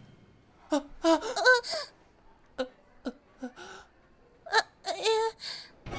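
Short nonverbal vocal reactions, small laughs and gasps, in three brief clusters with near-quiet between them.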